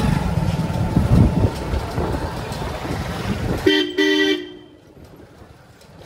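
Motorcycle running through street traffic, then a vehicle horn honks twice in quick short blasts about four seconds in. After the honks the sound turns much quieter, leaving a faint hiss.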